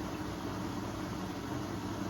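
Hoover H-Wash 600 front-loading washing machine running steadily on its Rapid 14 cycle: an even mechanical hum with a layer of noise above it.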